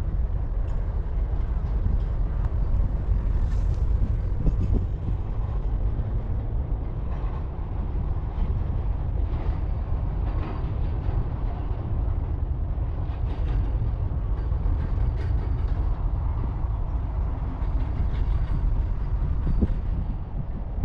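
Wind buffeting the microphone in a steady low rumble, with a few faint ticks above it.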